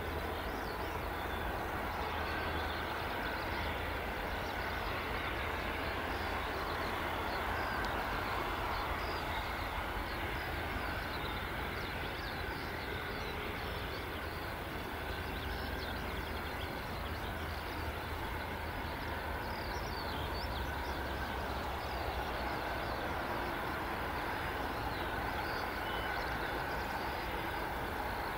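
Airbus A321neo jet engines running at taxi power as the airliner rolls along the taxiway, a steady, even rushing noise with a low rumble underneath.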